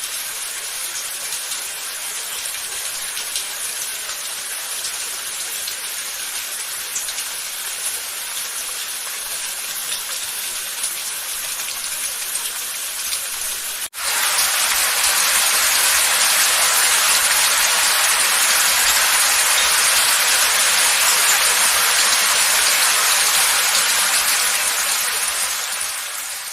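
Rain falling steadily, with separate drops heard within the hiss. About fourteen seconds in it cuts abruptly to a louder, denser downpour, which starts to fade out near the end.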